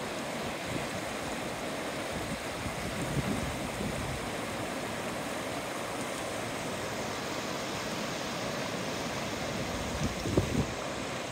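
The Nenana River's fast, grey glacial water rushing steadily over its stony bed. About ten seconds in, a few low gusts of wind buffet the microphone.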